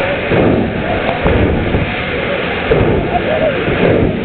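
Drag-racing car engine running loud and harsh at the start line, overloading the microphone, with crowd voices mixed in.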